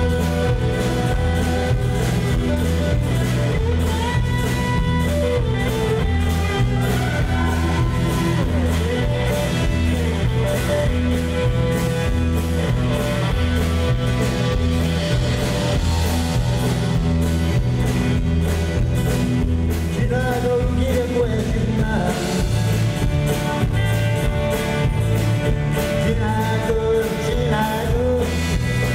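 Live band playing a rock song: acoustic guitar, electric bass and drum kit keeping a steady beat, with a man singing.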